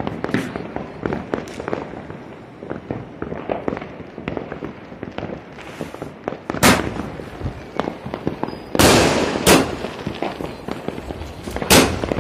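Fireworks going off: a continuous scatter of small crackling pops, with four much louder bangs in the second half.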